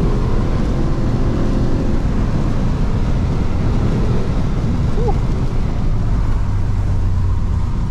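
Volkswagen Golf R32's 3.2-litre VR6 engine running as the car is driven, heard from inside the cabin over steady tyre and road noise on a wet road.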